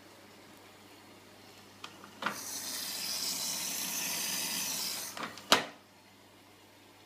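AEG Lavamat washing machine filling: with a click, water rushes in through the inlet valve and detergent drawer for about three seconds. It then cuts off, and a loud click follows.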